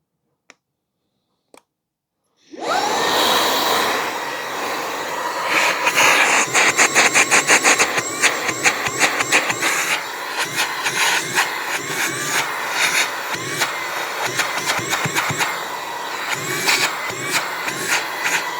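Brigii MX30 cordless handheld car vacuum, with a brushless motor, switching on about two and a half seconds in and running close to the microphone: a loud, steady rush of air with a high whine. Quick fluttering pulses ride on it for a few seconds in the middle.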